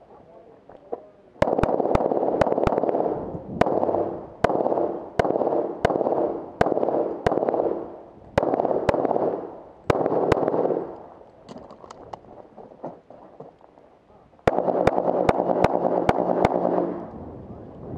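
Competition pistol fired in quick strings of shots, from a pair up to about six in a row, with short pauses between strings. Each shot is a sharp crack followed by a brief ringing echo, and a few fainter pops come in the lull near the middle.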